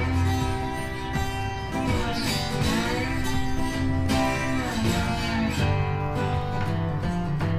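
Background music: a country-style tune led by acoustic guitar.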